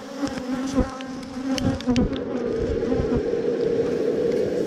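Agitated honeybees buzzing close around the open hive, one wingbeat hum wavering past, with a few sharp clicks. From about halfway a louder steady rushing sound sets in, a handheld butane torch burning into the bee smoker to relight it.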